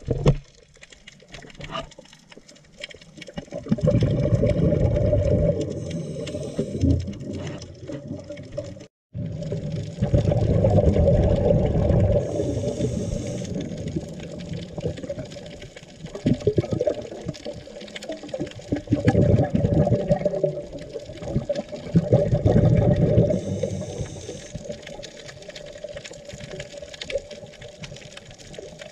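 Scuba diver's breathing through a regulator, heard underwater: surges of bubbling rumble from exhaled air lasting a few seconds each, with a short high hiss of an inhale a few times between them. The sound cuts out for a moment about nine seconds in.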